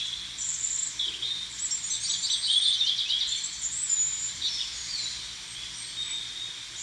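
Small birds chirping and twittering: a busy run of short high chirps and quick trills, thickest two to three seconds in.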